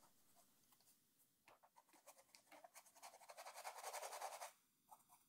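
Faint scratchy strokes of a paintbrush's bristles working acrylic paint over canvas, starting about two seconds in as a quick run of short strokes that stops shortly before the end.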